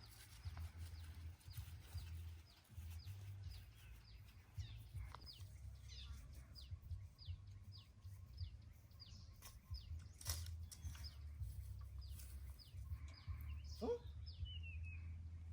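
Ducklings peeping: a long run of short, high, falling peeps, two to three a second, over a low rumble. Near the end a lower rising call breaks in.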